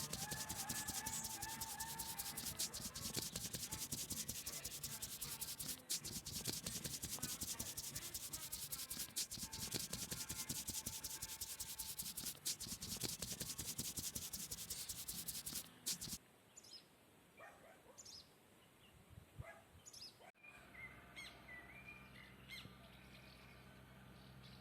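Dense scratchy rustling and scraping that stops abruptly about two-thirds of the way through. After it, birds chirp faintly over a low steady hum.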